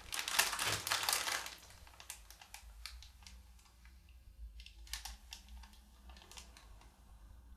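Plastic packaging of sliced provolone crinkling and crackling as it is opened and a slice pulled out: dense crackles for about the first second and a half, then scattered clicks.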